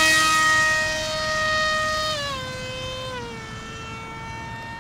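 Electric motor and propeller of a foamboard RC jet-style plane whining in flight, holding a steady pitch, then dropping in pitch in two steps about two and three seconds in as it grows quieter.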